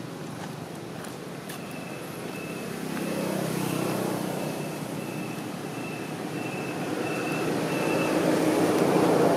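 Motor vehicles passing on a road, their engine rumble growing louder about three seconds in and again, louder still, near the end. A faint high tone sounds on and off through the middle.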